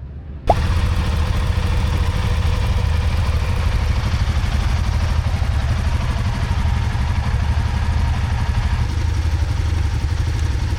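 Motorcycle engine running steadily at a low, even speed, coming in abruptly about half a second in.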